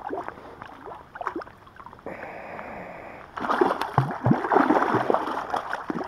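A hooked Atlantic salmon thrashing at the water's surface, splashing loudly and irregularly from about halfway through.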